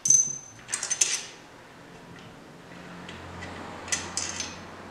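Sharp metallic clinks of small metal parts and tools being handled on a transmission case. A cluster comes right at the start, two more about a second in and a few near four seconds, each with a brief high ring.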